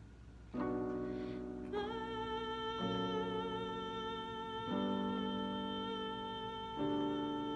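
Instrumental accompaniment playing slow sustained chords that change about every two seconds, under a long held high note, starting about half a second in.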